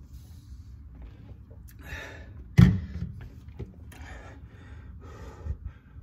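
A man breathing hard while catching his breath after exercise, with several loud breaths out. There is a sharp thump about two and a half seconds in.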